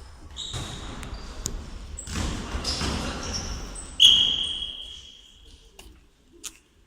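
Indoor futsal play in a hall: the ball being kicked and bouncing on the court floor, with short high squeaks from shoes. About four seconds in there is one loud, high-pitched tone that fades over about a second.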